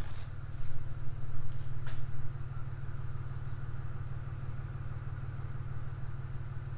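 A vehicle engine idling steadily with a low hum, with a few light knocks in the first two seconds.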